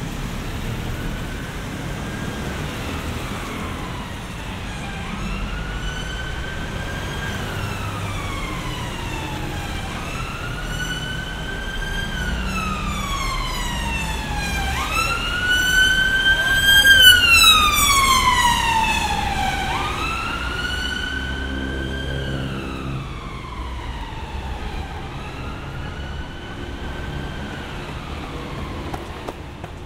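Emergency vehicle siren wailing: the pitch rises quickly, holds, then falls slowly, repeating about every five seconds. It grows louder to a peak a little past halfway, then fades as it moves away, over a low rumble of street traffic.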